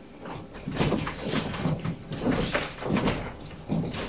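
Footsteps of several people walking across a stage floor, a run of separate thudding steps at about two a second.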